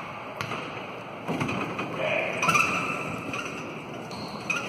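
A few separate thumps of a basketball bounced on a hardwood gym floor, over low crowd chatter echoing in the gymnasium.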